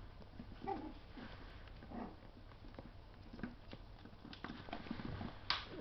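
Miniature schnauzer puppies' claws pattering and clicking on a hard floor in scattered, irregular taps as they move about, with a brief louder rustle near the end.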